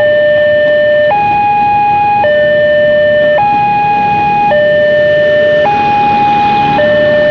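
Railway level-crossing warning siren sounding a two-tone signal, alternating between a low and a high tone, each held about a second, to warn that a train is approaching. Traffic noise runs underneath.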